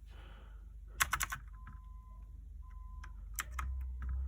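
Keys of a small mechanical keyboard being pressed, a quick run of about four clicks about a second in and a few more near the end, as key combinations are pressed to switch its lighting modes.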